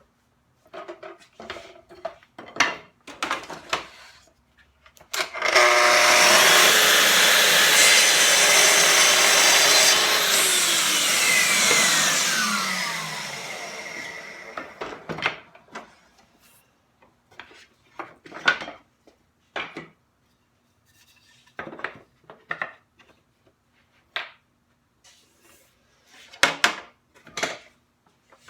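Festool TS55 plunge track saw running and cutting through a wooden frame piece for about six seconds, then its motor spinning down with a falling whine. Knocks from wood pieces being handled and set in the jig come before and after the cut.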